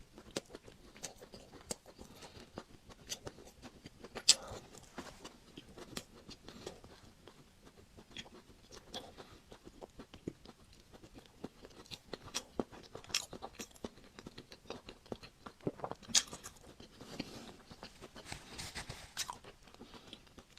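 Close-miked eating of a chocolate-coated Magnum ice cream bar: the chocolate shell crackles and crunches with bites, followed by wet chewing. The sharpest crunches come about four seconds in and again about sixteen seconds in.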